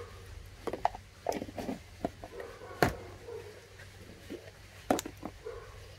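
Scattered sharp taps and knocks of seasoning containers and a bowl being handled while spices go onto fish. The loudest knock comes about three seconds in and another just before five seconds.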